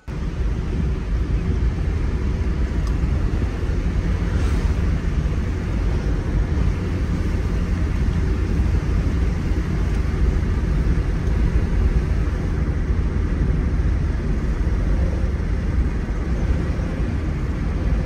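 Steady loud rumble of a car driving at speed: road and wind noise, heaviest in the low end, with no change in pace.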